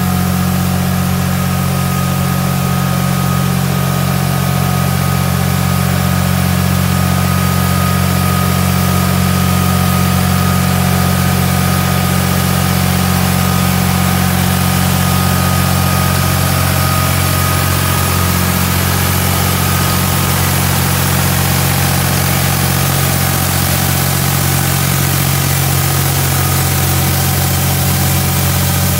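Massey Ferguson 3625 S tractor towing a trailed street sweeper: a loud, steady engine running at constant speed, with a thin steady whine above it, while the sweeper's rotating side brush works the gutter.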